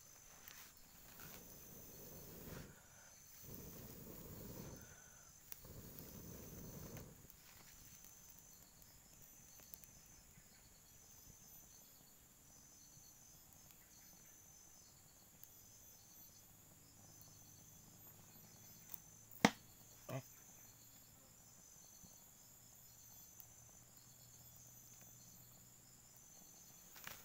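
Quiet forest ambience with insects chirping in a faint, high, evenly repeating pulse. There are a few soft low rushing swells in the first seven seconds and two sharp cracks about two-thirds of the way through.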